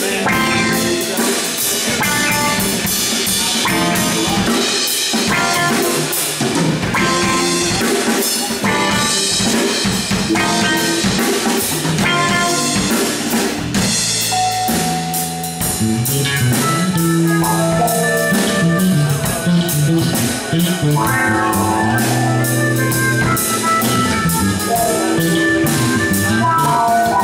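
Live instrumental funk-fusion band playing loudly: drum kit with busy cymbals, electric guitar and electric bass. Around the middle the dense drumming eases and a stepping bass line and melodic phrases come forward.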